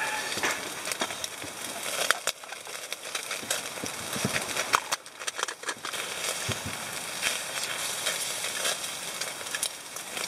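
Salted beef tongue sizzling and crackling over flaming charcoal on a shichirin grill, with many sharp pops and the clicks of metal tongs against the wire mesh.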